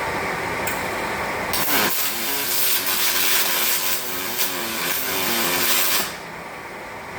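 MIG welding arc on aluminium under pure argon: a steady, crackling hiss that starts abruptly about a second and a half in and cuts off about six seconds in, when the torch trigger is released.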